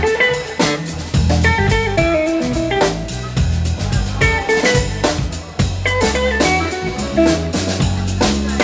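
Live instrumental trio: an electric guitar plays a melody of short stepping notes over an electric bass line and a Sonor drum kit keeping a steady beat with cymbal hits.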